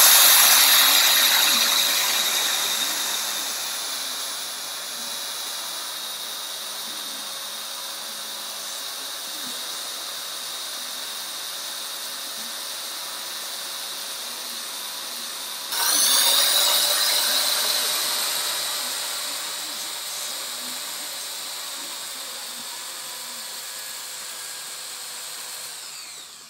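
Electric drill spinning a wooden knob with a steady motor whine, while 80-grit sandpaper held against the turning knob hisses as it strips the old stain. The sanding is loudest at the start and again about two-thirds of the way through, fading each time. The drill stops near the end.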